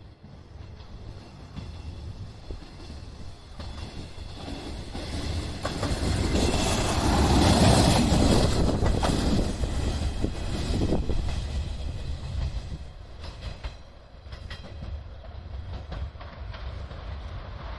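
Two-car Ibara Railway IRT355 diesel railcar running past, its rumble building to a peak as it goes by close about six to eleven seconds in, with wheels clicking over rail joints, then fading. A quieter, more distant train rumble follows near the end.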